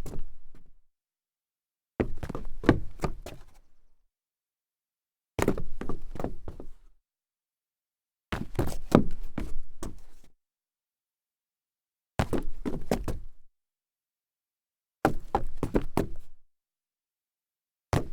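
Stumbling footsteps on a solid wood floor: clusters of several quick, uneven thuds and knocks, each lasting a second or two, repeated about six times with silent gaps in between.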